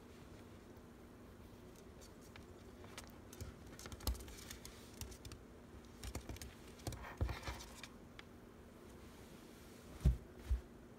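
Soft, scattered clicks, taps and scratching from close-up handling, with two louder knocks near the end, over a faint steady hum.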